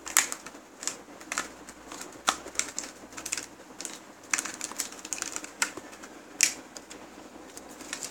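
Plastic blister and cardboard card of a Hot Wheels package being handled and opened, giving an irregular run of sharp clicks and crackles.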